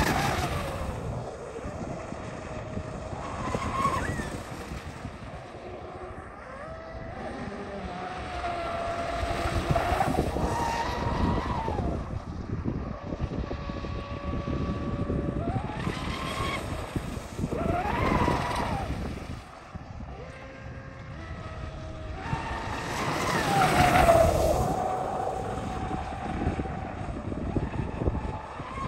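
Blackjack 42-inch 8S brushless RC catamaran running fast: the whine of its brushless motor and the hiss of its spray swell and fade as it makes repeated passes, the pitch dropping as it goes by. It is loudest about 24 seconds in.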